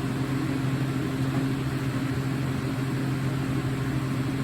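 Steady low hum of a running machine, with an even hiss behind it.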